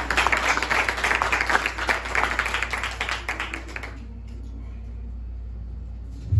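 Congregation clapping after a prayer, dying away after about four seconds, leaving a quiet room with a low steady hum.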